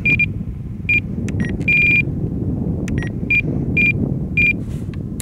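RC radio transmitter beeping at each press and scroll of its menu roller as a mix is programmed: about seven short, same-pitched beeps at uneven intervals, one held longer about two seconds in, with a few faint clicks over a steady low outdoor rumble.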